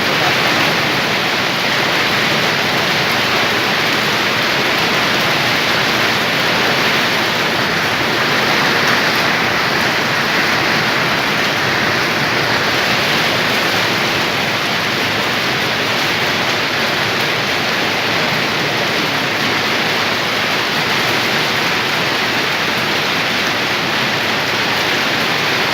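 Heavy rain pouring down in a steady, dense hiss that holds at the same level throughout.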